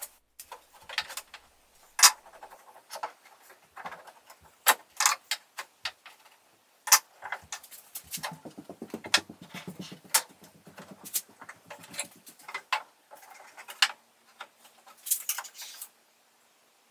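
Sharp, irregular clicks and knocks of metal bar clamps being set and tightened on a plywood cabinet, with a quick rattling run about eight seconds in.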